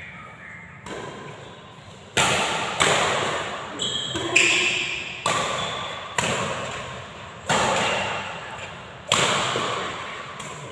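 Badminton rackets striking a shuttlecock back and forth in a rally, a sharp crack about once a second, each hit echoing in the large hall.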